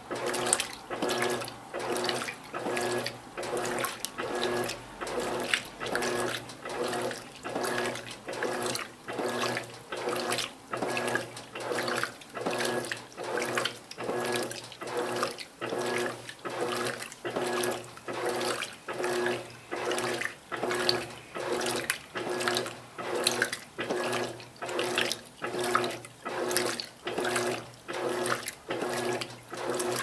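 Electrolux Silent Control LAC12 top-load washing machine's four-blade agitator churning a load of towels and bedding at high water level in normal (non-turbo) agitation. Water sloshes in an even rhythm, a stroke a little under every second, with the drive's hum rising at each stroke.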